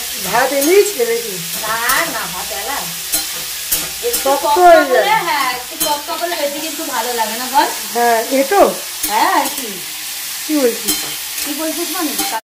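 Potato slices frying in hot oil, a steady sizzle with fine crackling, and wavering pitched sounds over it.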